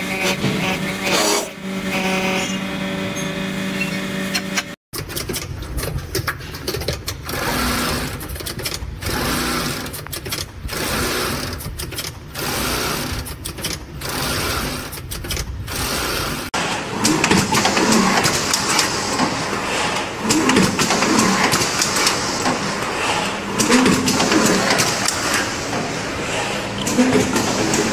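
Factory machines running in three short clips: first a steady hum, then an armature coil winding machine whirring and pulsing a little faster than once a second, then a busier, louder machine clatter with voices.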